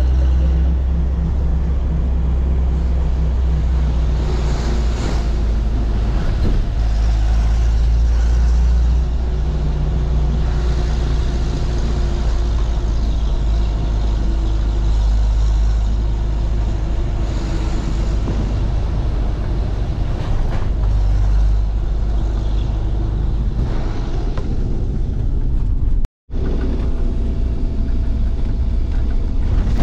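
Steady low rumble of a motor vehicle on the move, heard from inside the cabin, with road and body noise over it; the sound drops out completely for a moment near the end.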